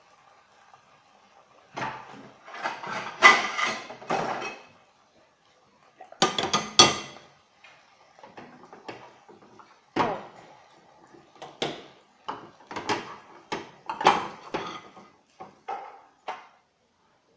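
Dishes and kitchen utensils clattering: a plate being fetched and handled, and a spatula knocking and scraping at a frying pan. The sound comes as a run of separate clatters and knocks, heaviest in the first half.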